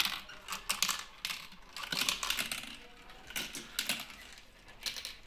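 Two marbles rolling down a plastic marble run, giving irregular clicks and rattles as they drop through the tubes and knock along the curved track pieces.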